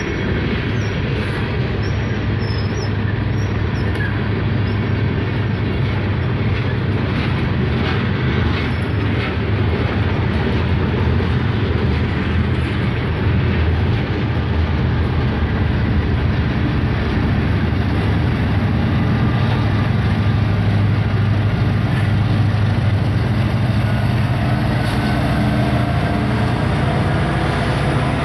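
Freight train of covered hopper cars rolling past close by: a steady low rumble of wheels on rail with a few faint clicks. Near the end a steady engine hum grows as the diesel locomotives draw alongside.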